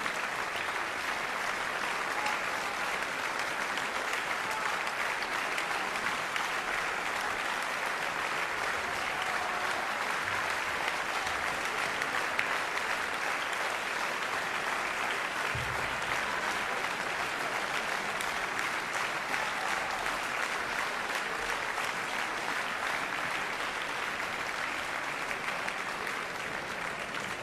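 Large audience in a concert hall applauding steadily, easing off slightly near the end.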